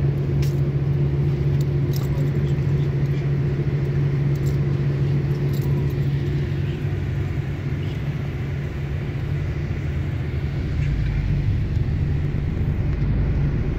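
Hino bus heard from inside the passenger cabin at cruising speed: a steady low engine drone over road and tyre noise, with a few light rattles in the first seconds. It eases slightly about two-thirds through, then picks up again.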